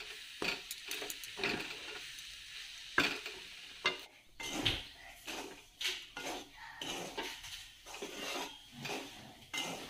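Spatula scraping and stirring grated coconut with jaggery and semolina as it dry-roasts in a metal kadhai, in repeated irregular strokes about one or two a second.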